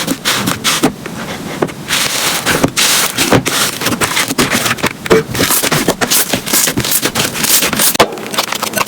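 Slime being squished and pressed, making rapid crackling and popping clicks.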